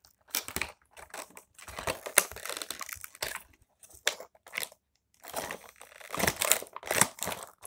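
Clear plastic doll packaging being squeezed and handled, crinkling and crackling in irregular bursts, with a short pause a little past the middle.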